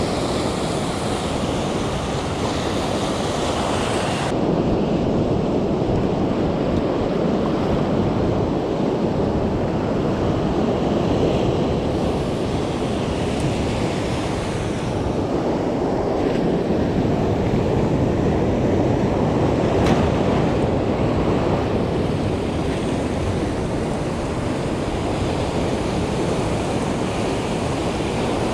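Rough sea surf breaking and washing over shore rocks in a steady, continuous rush, with wind rumbling on the microphone.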